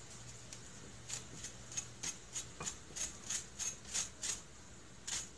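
A lemon being grated for zest over the pan: light, quick scraping strokes, about three a second, starting about a second in.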